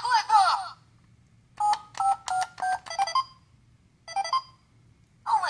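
Miraculous Ladybug Compact Caller toy phone: a short warbling electronic sound, then a quick run of about six beeps at stepped pitches as the number is dialled, and a single beep about four seconds in before the toy's recorded voice begins at the very end.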